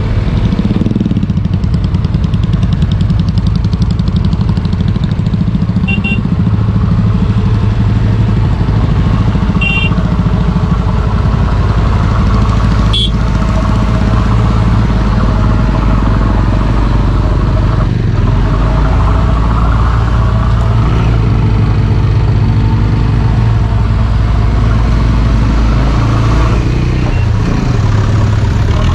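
Motorcycle engine running steadily while under way, its pitch slowly rising and falling with speed.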